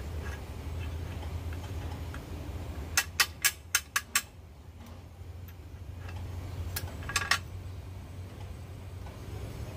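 Sharp clicks and snaps from a hand-lever seed-cracking press as it cracks the hard shell of a kepayang (keluak) seed. A quick run of about six clicks comes about three seconds in, and a few more about seven seconds in, over a steady low hum.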